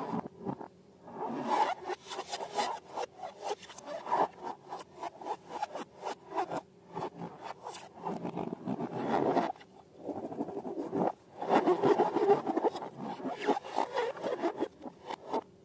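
Slime being worked by hand: irregular crackling, rubbing and scraping in several bouts, with brief pauses about 7 and 11 seconds in.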